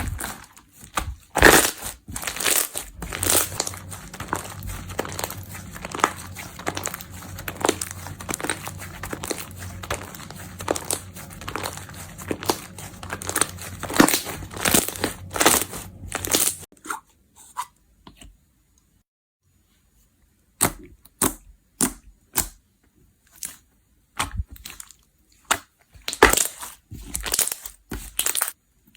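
Slime being squeezed and worked by hand, giving a dense run of crackles and sticky pops over a low steady hum. The hum and crackling stop about halfway. After a few seconds of near silence come separate sharp pops.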